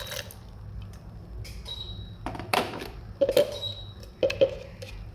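A spoon clinking and knocking against a bowl while hot water is stirred into crushed toasted bread, with about five sharp knocks in the second half, each ringing briefly.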